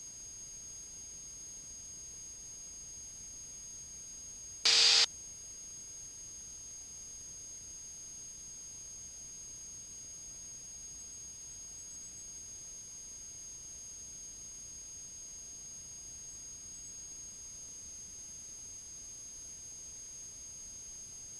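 Cockpit audio feed carrying a steady hiss with a thin, high-pitched electrical whine, the engine barely coming through. A single short, loud blip cuts in about five seconds in.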